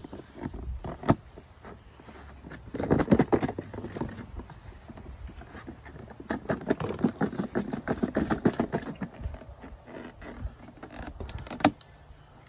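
A capped container being shaken hard by hand in two bouts, a short one about three seconds in and a longer one midway, each a fast rattling shake. A few single knocks come near the start and near the end.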